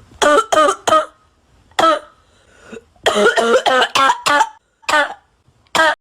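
A person coughing repeatedly in short fits, about ten coughs: a quick run of three at the start, a single cough, then a rapid run of about five, and two more spaced out near the end.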